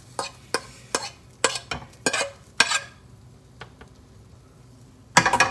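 A kitchen utensil scraping and tapping against a frying pan as vegetables are put onto an omelet. There is a quick run of sharp clicks over the first three seconds, then a short clatter near the end.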